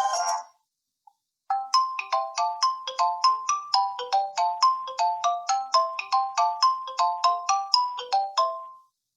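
One of the BQ-5007L Iron smartphone's preset ringtones playing: a quick melody of short notes, about three a second, that fades out near the end. A previous ringtone cuts off just at the start, and the new melody begins after about a second of silence.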